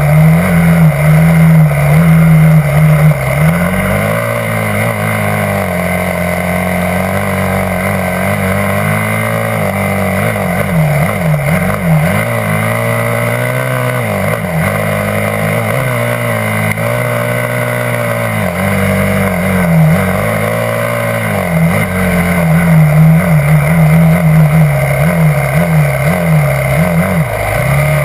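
Yamaha YZ250F dirt bike's four-stroke single-cylinder engine under way, its pitch rising and falling over and over as the throttle is opened and closed along the trail.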